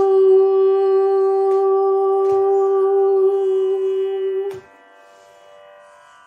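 A woman's voice holds one long, steady sung note in Carnatic style, the closing note of a song, over a tanpura drone. The voice stops about four and a half seconds in, leaving the drone sounding softly.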